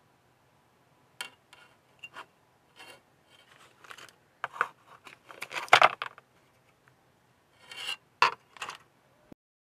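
Plastic model-kit runner (sprue) being handled and set down on a desk and cutting mat: a string of light clacks, rubs and scrapes, busiest around the middle, with a sharp clack near the end.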